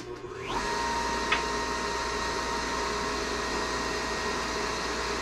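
A switch clicks and a dental wet-ring vacuum pump starts up, its motor whine rising to speed within about half a second, then running steadily with a hum and a rushing noise.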